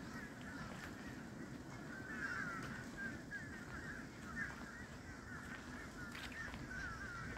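A distant flock of geese calling, many honks overlapping without a break, over a low steady rumble.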